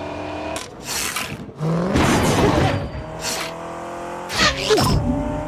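Car engines running in a chase, with several sudden bursts of rushing noise from cars passing close, the loudest about two seconds in and again near the end.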